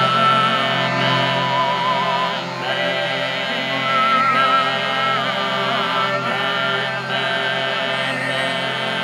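Overtone singing: a steady low vocal drone with a whistling overtone melody above it, wavering with vibrato and stepping from note to note.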